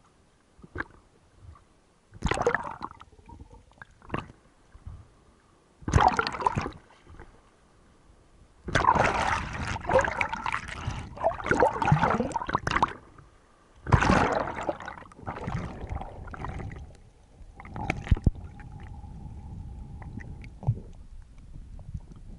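Sea water sloshing and gurgling around the camera in irregular splashing bursts, heard both at the choppy surface and underwater.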